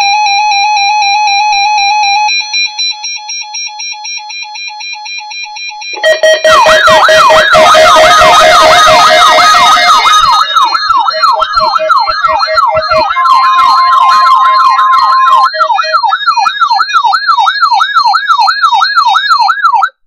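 Weather alert radios sounding their alarms for a Required Weekly Test. First comes a steady electronic beep tone that changes to quick pulsing after about two seconds. Then, from about six seconds in, a loud warbling siren sweeps up and down about twice a second, layered with other beeping alarm tones, and cuts off at the end.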